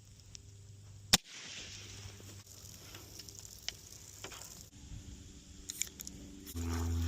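.22 rimfire rifle fired once about a second in: a single sharp crack. A few faint clicks follow, and near the end a steady low hum begins.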